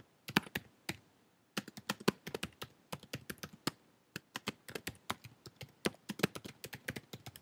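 Typing on a computer keyboard: a few keystrokes, a short pause about a second in, then a quick, steady run of keystrokes.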